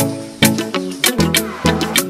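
Background music with a steady, upbeat rhythm, its drum hits about two to three times a second under pitched instrument notes.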